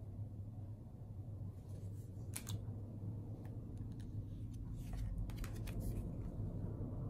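Stiff oracle cards handled and laid down on a wooden table: soft slides and light taps, a couple of sharper clicks about two and a half seconds in, and a quick run of clicks around five to six seconds in, over a low steady hum.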